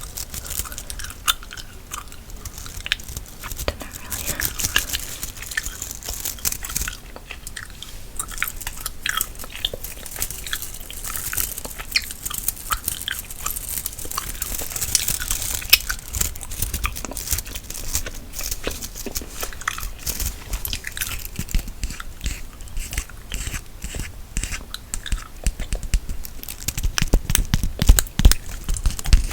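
Gum chewed close to a sensitive microphone: a stream of quick wet clicks and smacks. A few louder low thumps come near the end.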